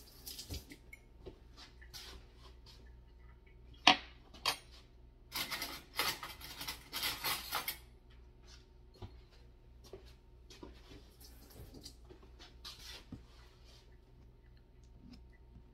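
Metal kitchen utensils clattering and clinking as measuring spoons and cutlery are handled, with one sharp knock about four seconds in. A busier spell of clatter follows for a few seconds, then lighter clinks of a metal measuring spoon against the table and a honey jar.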